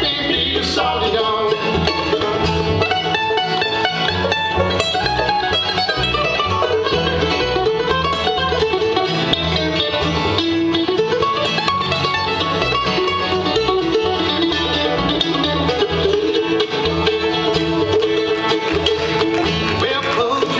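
Acoustic bluegrass band playing an instrumental break: a mandolin picks the lead while acoustic guitar and five-string banjo play along behind it.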